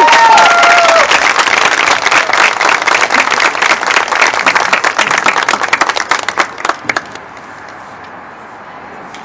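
Crowd applause after a marching band's held brass chord cuts off; the chord's last tones die away in the first second. The clapping thins out and stops about seven seconds in, leaving low crowd noise.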